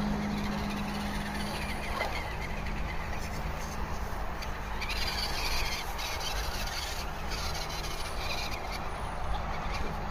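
Radio-controlled rock crawler creeping slowly down a steep wooden ramp under trail brake, its electric drive motor and gears giving a low, steady hum.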